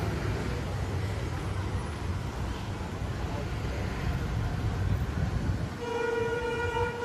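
Street traffic noise with a steady low rumble, and a vehicle horn sounding one steady note for about a second near the end.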